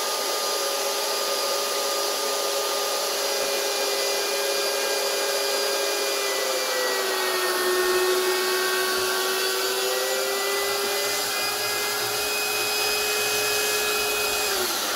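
Electric air pump running with a steady whine as it inflates a chamber of an inflatable boat through a nozzle. Its pitch dips slightly about halfway through, and at the very end it is switched off, the whine falling in pitch as it winds down.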